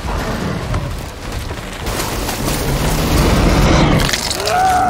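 Deep rumbling, booming sound effects from a horror-film soundtrack, swelling toward the end. Near the end a man starts crying out in pain.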